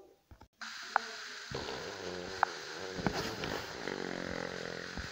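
Drawn-out, raspy fart noise that starts about half a second in and sinks in pitch in its second half, with three sharp taps over it.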